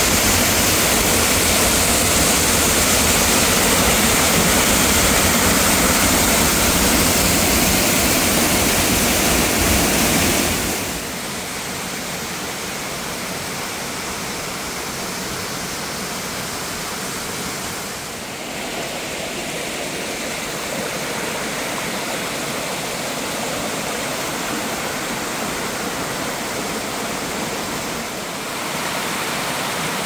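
Waterfall rushing down a narrow rock chute, a loud, steady roar of falling water. About ten seconds in it drops to a quieter, steady rush.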